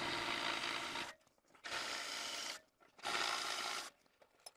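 Cordless drill boring into the steel frame of a press brake, run in three bursts of about a second each with short pauses between.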